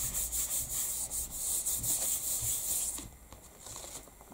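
A hand rubbing quick repeated strokes over a sheet of card laid on a gel printing plate, smoothing it down to lift the ink print. The rubbing stops about three seconds in.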